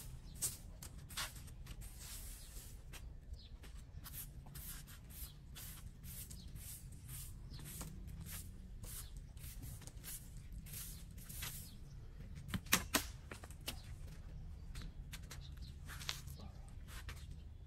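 Plastic-bristle broom sweeping a concrete pavement in short, irregular scraping strokes, with a couple of sharper knocks about two-thirds of the way through, over a low steady background rumble.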